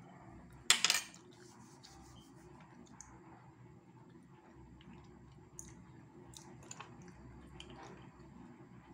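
Faint handling sounds at a table: scattered light clicks and small knocks over a low steady hum, with one short, louder rustling burst about a second in.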